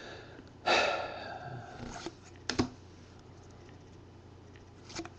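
A stack of trading cards handled in the hands, cards slid from the front of the stack to the back: a rustle about a second in, then a few light clicks and taps of card edges.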